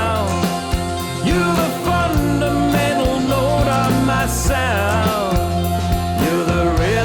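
Rock-style band music in an instrumental break of a worship song: drums and steady bass under a lead melody that slides and bends in pitch.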